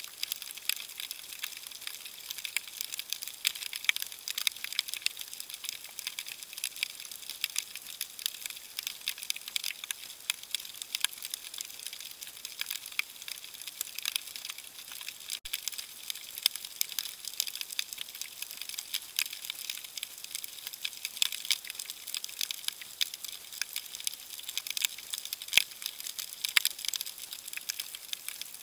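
Underwater crackle of snapping shrimp: a dense, steady patter of sharp clicks, many every second, with no let-up.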